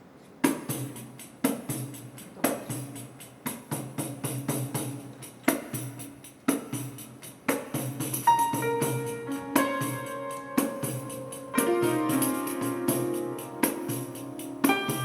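Small band music: a pandeiro's hits and jingles over a low bass line set a steady beat with a strong accent about once a second, and piano chords and notes join about eight seconds in.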